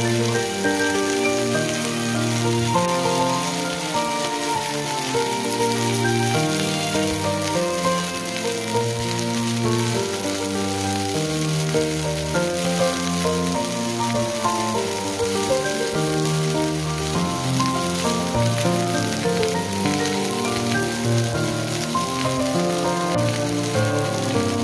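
Sea bream frying in oil in a frying pan, a steady sizzling hiss, with background music of held notes changing every half second or so over it.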